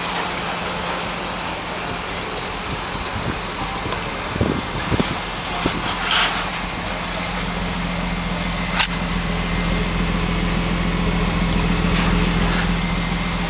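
Lexus IS300's 3.0-litre straight-six idling through a Greddy Evo2 cat-back exhaust: a steady low drone that grows louder over the second half. A sharp click sounds about nine seconds in.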